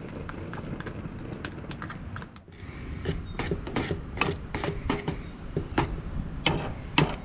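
A stirring utensil clacking and scraping against a small metal saucepan as thick cheese sauce is stirred: a quick, irregular run of sharp clicks over a low steady rumble.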